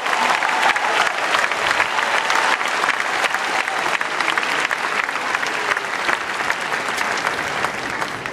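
Stadium crowd of tennis spectators applauding a point, many hands clapping at once, tapering off near the end.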